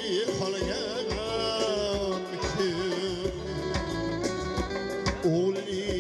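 Male voice singing a folk song into a microphone, holding long wavering notes with quick ornamental turns, accompanied by a plucked long-necked lute and a steady percussive beat.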